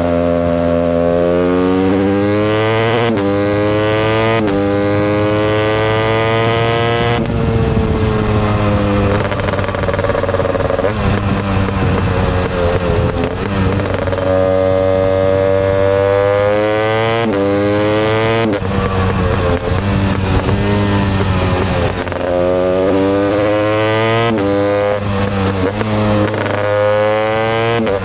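2020 Husqvarna TE 250i fuel-injected single-cylinder two-stroke dirt bike engine pulling hard through the gears. Its pitch climbs, then drops sharply at each upshift, and this repeats several times. In the middle stretch the engine runs rougher and lower, off the throttle.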